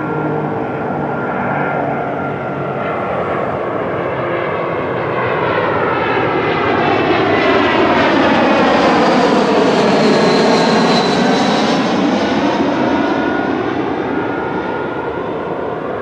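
Jet airliner passing low overhead on approach to land. The engine noise swells to its loudest about two-thirds of the way through and then eases off, with a whooshing sweep that falls and rises again in pitch as the plane goes over.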